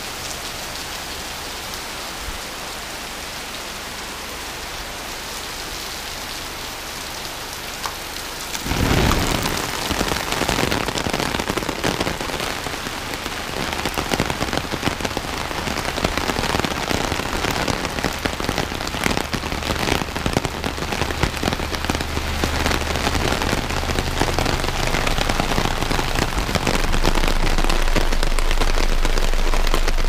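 Heavy tropical rain pouring down in a steady hiss. About nine seconds in it turns suddenly louder and closer, a dense patter of drops drumming on an umbrella held overhead. Near the end a low steady hum joins in.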